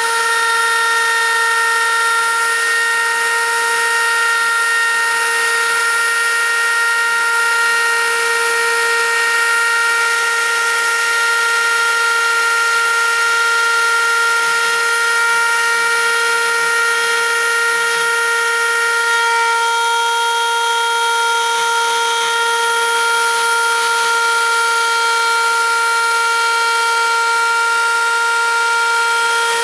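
Homemade CNC router's spindle motor running at constant high speed while milling olive wood: a steady, loud high-pitched whine with several overtones over a light hiss. One upper overtone fades about two-thirds of the way through.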